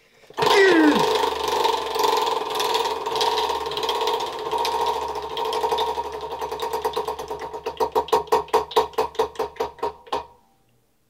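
Prize wheel spinning, its clicker ticking rapidly against the pegs, then slowing into separate, more widely spaced clicks until it stops about ten seconds in.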